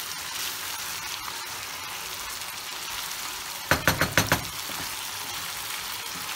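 Minced meat and tomato sauce sizzling steadily in a frying pan, as a glass of water is poured in at the start. About four seconds in comes a quick run of about five knocks as the wooden spoon stirs against the pan.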